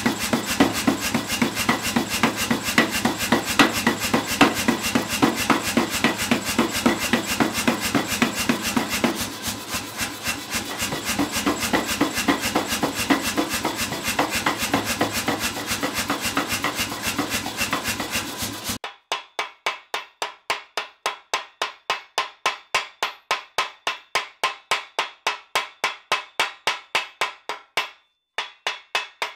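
Power hammer pounding the red-hot end of a round steel bar in rapid, even blows over a steady motor hum, forming a ball on the bar end. About two-thirds in it gives way to a hand hammer striking the hot ball in a swage block, about three blows a second, which stop shortly before the end.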